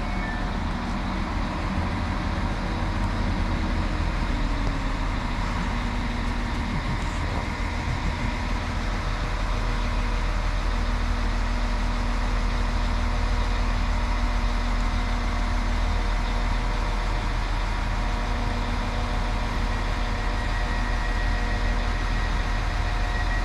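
Class 195 diesel multiple unit running with a steady diesel engine note. One of its tones falls in pitch a few seconds in.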